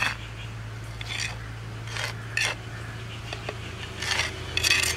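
Small steel spoon scraping rice flour off a clay bowl into a clay pot: a series of short, separate scrapes, over a steady low hum.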